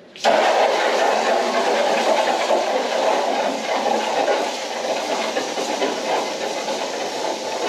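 Water spraying hard onto a car's bodywork from a hose or washer nozzle, a steady hiss that starts abruptly a moment in.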